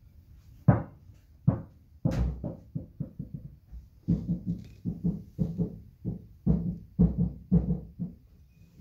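Baby leopard tortoise shells knocking and bumping against their dishes as the tortoises clamber about: irregular knocks, a few spaced ones at first, then two or three a second from about four seconds in.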